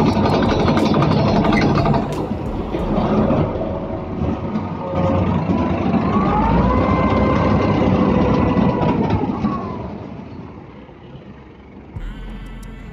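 Tractor engine running under load, driving a soil loader machine whose conveyor flings soil, with a dense clatter. About six seconds in the engine pitch rises, holds, then drops back, and the noise fades near the end.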